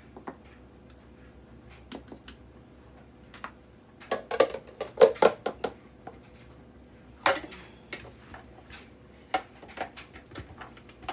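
Plastic knocks, clatter and scraping as chopped onion and bell pepper are tipped and knocked out of an electric food chopper's plastic bowl into a plastic container. The knocks come in a quick cluster about four to five and a half seconds in, with one sharp knock about seven seconds in, over a faint steady hum.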